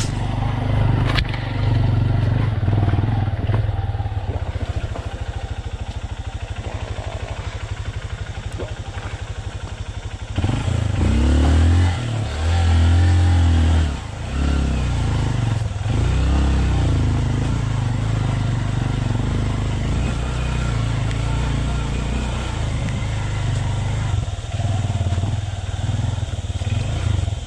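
Honda CRF150L's single-cylinder four-stroke engine running under load on a rough, rocky trail, with a louder stretch of revving, rising and falling as the throttle is worked, around the middle. A couple of sharp knocks near the start.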